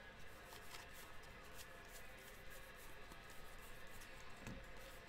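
Faint handling of baseball trading cards: soft, irregular little ticks and slides as the cards are pushed off the stack one by one.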